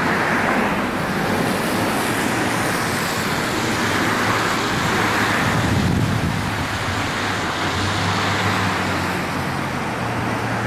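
Road traffic on a bridge: a steady rushing noise of passing vehicles, with a vehicle engine's low hum growing louder near the end.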